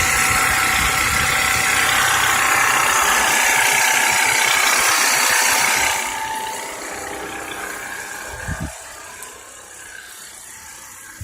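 Duromax XP4850EH portable generator's single-cylinder engine running steadily under load from two 1500-watt heaters and a battery charger. It is loud up close, then drops to a much quieter running sound about six seconds in as the distance from it grows, with a brief low thump a couple of seconds later.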